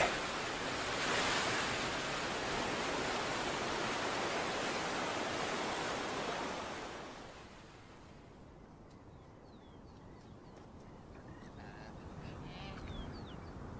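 Whitewater cascade rushing steadily, then fading out about seven seconds in. A quiet outdoor background follows, with a few faint, short high bird chirps.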